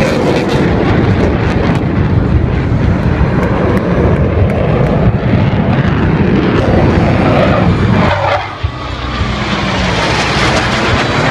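Loud jet noise from US Navy Blue Angels F/A-18 Hornet fighter jets flying past low. About eight seconds in the noise dips sharply for a moment, then comes back with a falling pitch as a jet passes.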